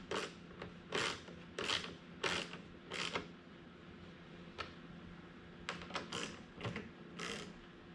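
Hand work on a dirt bike's radiator guard and plastic shroud: a series of short scrapes and clicks of tools and parts. About five brisk scraping strokes come in the first three seconds, then scattered sharp clicks.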